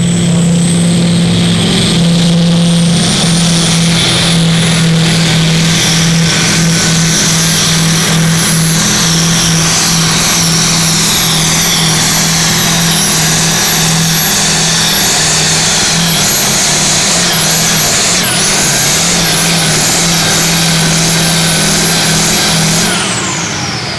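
Oliver pulling tractor's 10.3-litre diesel engine running flat out under full load while dragging the weight sledge: a steady, loud drone with a thin high whistle slowly rising above it. Near the end the engine note drops away as the tractor reaches a full pull.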